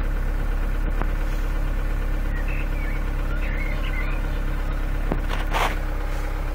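Opel/Vauxhall Astra H car engine idling steadily, heard from inside the cabin. A brief click comes about a second in, and a short knock near the end.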